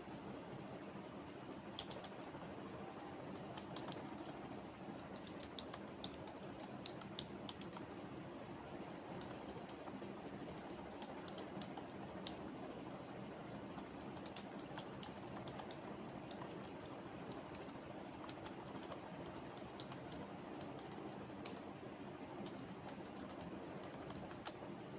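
Typing on a computer keyboard: irregular key clicks in quick runs and pauses, over a steady low background hum.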